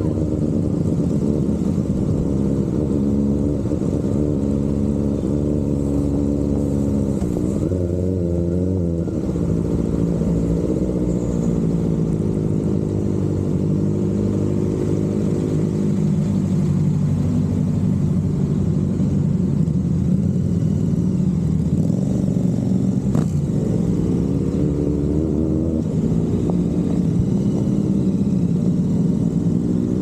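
Kawasaki ZX-4RR's inline-four engine running at low speed in traffic: its pitch dips and rises early on, it idles steadily through the middle at a stop, and it revs up near the end as the bike pulls away. A single sharp click sounds partway through.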